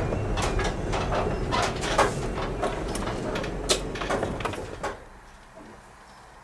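Road and engine rumble heard inside a moving car, with rattles and knocks, dropping away suddenly about five seconds in to a quiet background.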